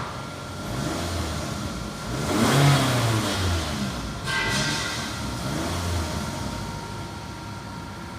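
Toyota RAV4's 2.4-litre four-cylinder engine running and revved up in several blips, the pitch rising and falling back each time, with a steady high whine over it.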